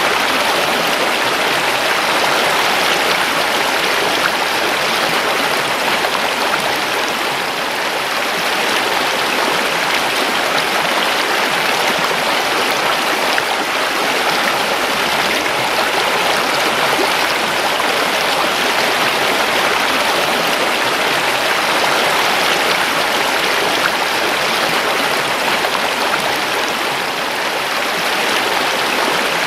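River water rushing and babbling steadily over rocks.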